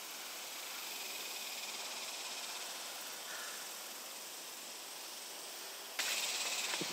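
Steady, even hiss of outdoor background noise, mostly high-pitched. About six seconds in it gets louder.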